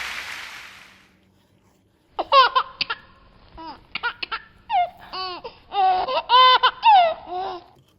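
A baby laughing: a run of short, high-pitched giggles starting about two seconds in, after the fading tail of a crash-like noise at the start.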